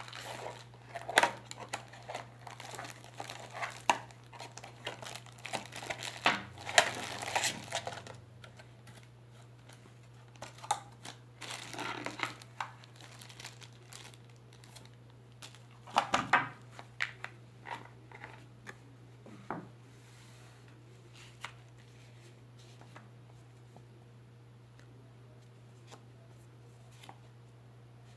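Packaging crinkling and tearing as a product is unwrapped, in irregular bursts that are busiest in the first half and thin out to a few scattered clicks later, over a steady low hum.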